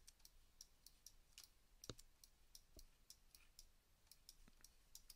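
Near silence with faint, irregular clicks from a computer mouse, slightly stronger about two seconds in.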